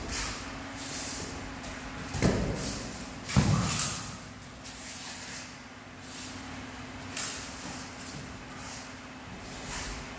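Sounds of a small-sword fencing bout: several sharp knocks and scuffs from the fencers' movement, the loudest about three and a half seconds in, over a steady hum.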